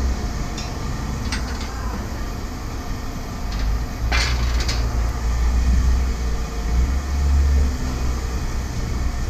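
Low vehicle rumble that swells and eases, with a few light knocks and rattles, the loudest about four seconds in.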